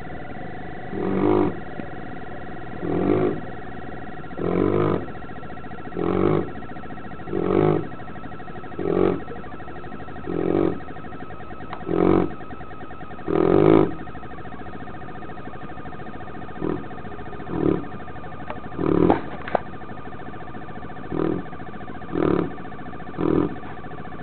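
Mastino (Neapolitan Mastiff) snoring in its sleep, a rhythmic snore about every one and a half seconds. In the second half the snores become shorter and come a little quicker.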